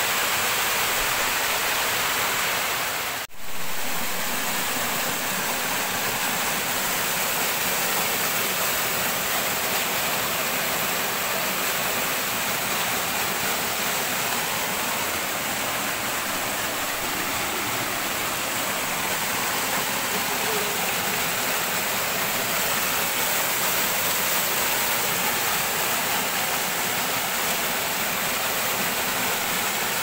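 Steady rush of falling water from Chichibu Kegon Falls, cut off for an instant about three seconds in.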